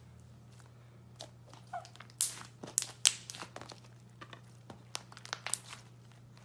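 White slime squeezed and stretched by hand, giving sharp crackles and pops in bursts. The densest bursts come about two to three seconds in and again near the end, over a faint steady low hum.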